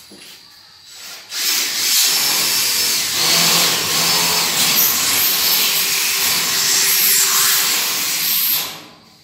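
Electric drill running under load for about seven seconds, drilling into the steel ceiling framing; it starts about a second in and stops near the end.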